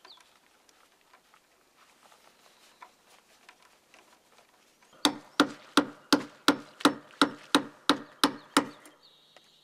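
Hammer driving nails into a wooden door frame: about eleven sharp, evenly spaced blows, roughly three a second, starting about halfway through, each with a short ring. Before them only faint taps and clicks.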